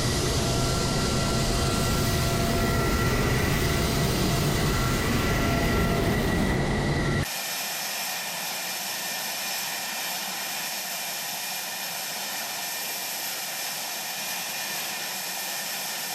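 Fighter jet engine running at idle, a steady rumbling rush with a high whine over it. About seven seconds in, the sound cuts to a quieter, thinner hiss with the low rumble gone.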